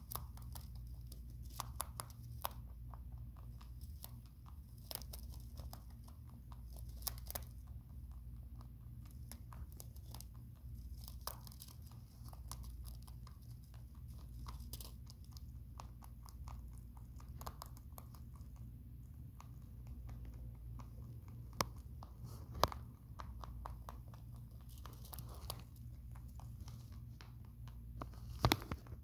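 Pet rabbit gnawing on a rattan ball and a bundle of wooden chew sticks: irregular small crunching clicks, with a few louder snaps about two-thirds of the way in and near the end, over a low steady hum.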